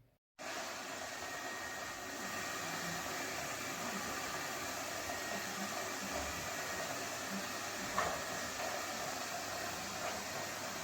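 Lefant M330 Pro robot vacuum running, a steady whirring hiss from its suction fan with a faint thin whine above it, and one brief knock about eight seconds in.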